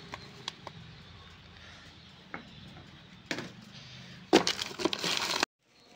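Purchased goods being handled and carried in: scattered small knocks and clicks, then about a second of loud rustling and clatter near the end that cuts off abruptly.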